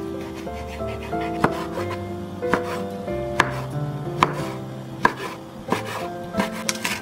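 Chef's knife slicing squid into strips on a wooden cutting board: about eight sharp knocks of the blade against the board, roughly one a second and coming quicker near the end, over soft background music.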